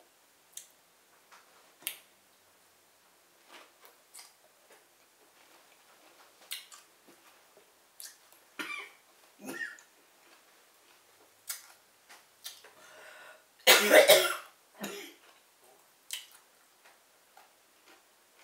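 Close-up mouth sounds of eating: small wet clicks and smacks from chewing. About two-thirds of the way through comes one loud cough, followed by a smaller one.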